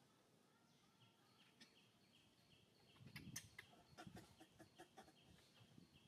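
Faint clucking, like fowl, with a few sharp clicks bunched together midway, over a short high chirp repeated about twice a second.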